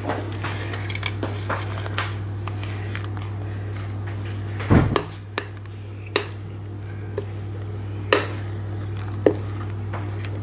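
Spatula clicking and scraping against a glass mixing bowl as thick brownie batter is tipped out into a paper-lined baking tray, with a louder, duller thump about five seconds in. A steady low hum runs underneath.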